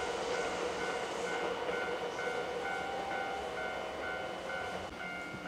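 Railway level crossing warning bell ringing steadily, about two strokes a second, over the running noise of an approaching Keihan 2200 series electric train.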